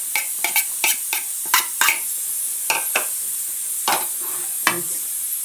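A utensil scraping and tapping against a plastic bowl as crushed garlic is knocked out onto chicken in a baking dish: irregular quick clicks and taps, thinning out after about three seconds, over a steady hiss.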